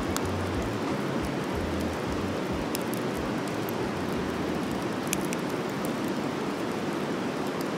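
Wood campfire crackling, with a few sharp pops, over the steady rush of river water.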